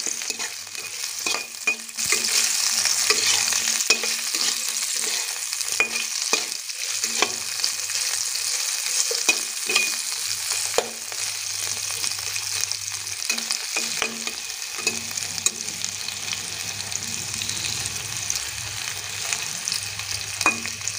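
Potato slices sizzling in hot oil in a kadhai, with clicks and scrapes of a metal utensil turning them in the pan. The sizzle gets louder about two seconds in.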